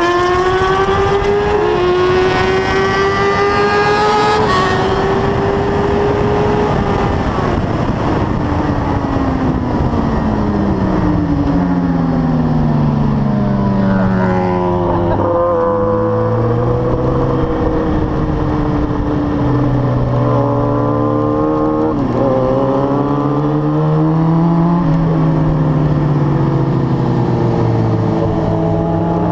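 Suzuki 1000 cc superbike engine heard from on the bike at racing speed, over steady wind rush. It climbs through upshifts in the first few seconds, winds down through downshifts while braking into a corner around the middle, then pulls hard back up through the gears in the last third.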